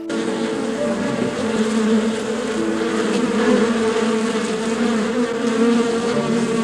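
Steady, dense buzzing of a swarm of insects, a wavering hum that cuts off abruptly near the end.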